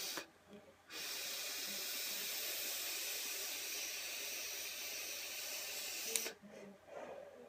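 Long, steady airy hiss of a drag on a sub-ohm vape tank, its 0.33-ohm coil fired at 50 watts, lasting about five seconds after a brief first puff; softer breathy sounds follow near the end.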